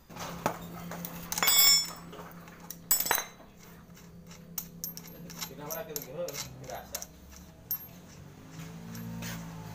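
Small metal clinks and taps from fitting a scooter's CVT clutch housing onto the driven pulley and threading its nut on by hand, with a louder metallic clatter about a second and a half in and a run of light ticks in the middle.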